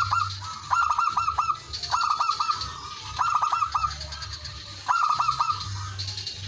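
Male zebra dove (perkutut) singing its cooing song: short phrases of quick, staccato notes, about five of them, each after a pause of a second or so. This is the male's call to rivals.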